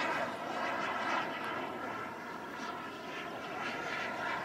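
Radio-controlled Panther model jet flying overhead: a steady rushing engine noise with a thin whine running through it, dipping a little in level midway and building again near the end.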